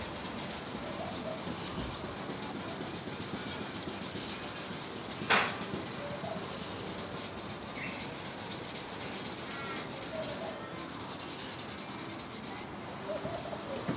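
Hand sanding of a plastic headlight lens with a lubricated abrasive pad from a headlight restoration kit: steady back-and-forth rubbing. There is one sharp click about five seconds in.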